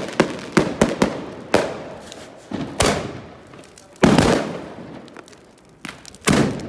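Fireworks going off: a run of sharp bangs at uneven intervals, each trailing off with an echo. The loudest bang comes about four seconds in, and another comes near the end.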